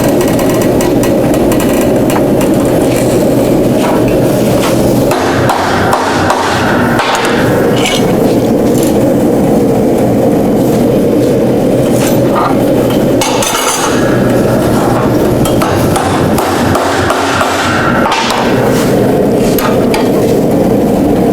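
Hammer strikes on a hot solid steel bar as it is bent around a steel mold, heard over a loud, steady rushing noise.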